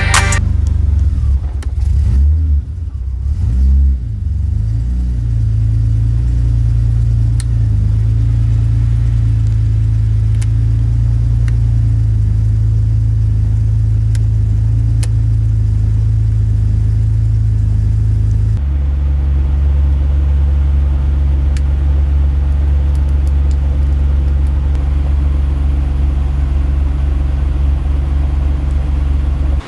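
BMW E36 M3's S52 straight-six engine running: the note wavers up and down for the first few seconds, then holds a steady drone, and about two-thirds of the way through it shifts to a different steady note.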